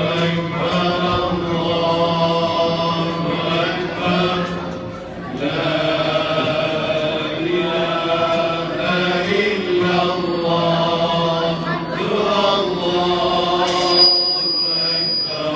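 Male choir singing a slow melody in unison, in long held phrases with short breaks, accompanied by a traditional Turkish ensemble of oud, kanun, ney, clarinet and frame drum.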